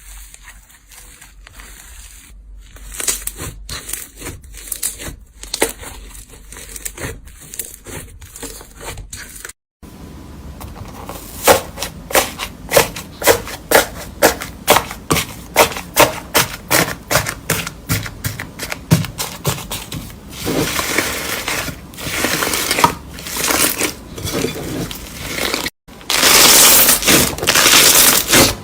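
Slime being squeezed and pressed by hand, making crackling pops and crunches. Sparse clicks give way to a run of sharp pops, a few a second, then to denser crunching, with a brief gap between each part.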